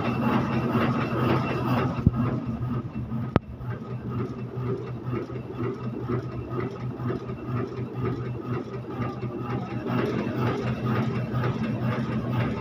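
Heidelberg GTO offset printing press running with a steady mechanical hum. Two sharp clicks cut through it about two and three and a half seconds in.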